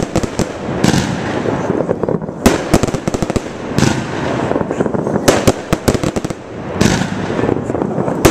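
Aerial fireworks display: a rapid, unbroken barrage of shell bursts and crackling, with heavier bangs every second or so.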